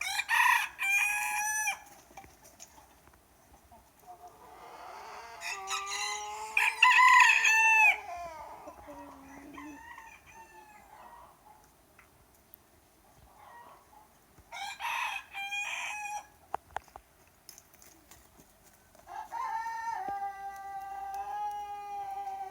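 Roosters crowing in turn, four crows in all: the loudest about a third of the way in, and the last a long, drawn-out crow near the end.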